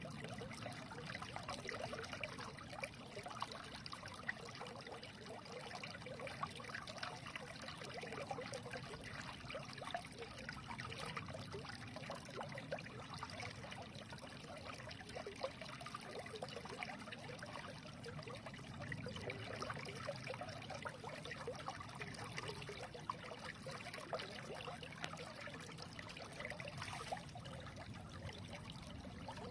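Shallow stream trickling and babbling steadily over stones, a continuous bubbling wash of water.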